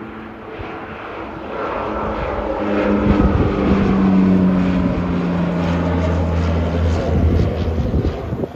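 Saab 340B turboprop airliner taking off and climbing out, its two General Electric CT7 turboprop engines and propellers droning at take-off power. The sound grows louder over the first three seconds as the aircraft lifts off and climbs past, then holds.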